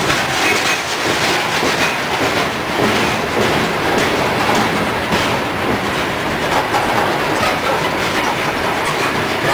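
Steady rumble of coal hopper cars on a CSX freight train rolling past close by, with wheels clicking irregularly over the rail joints.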